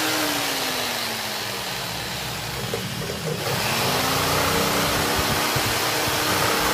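Handheld electric jigsaw running with its blade in a clear acrylic sheet. The motor's pitch sinks over the first two seconds, then about three and a half seconds in it climbs back and holds steady.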